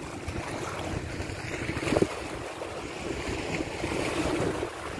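Wind buffeting the microphone over small waves washing against rocks, with one sharp click about two seconds in.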